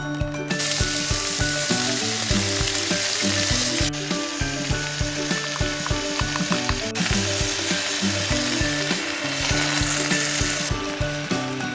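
Cabbage, onion and bacon sizzling as they fry in a stainless steel pot on a gas stove while being stirred. The sizzle starts about half a second in and stops shortly before the end, over background music with a steady beat.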